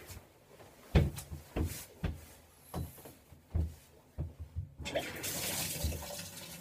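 A few scattered knocks and rustles, then a shower is turned on about two-thirds of the way through and its water sprays steadily.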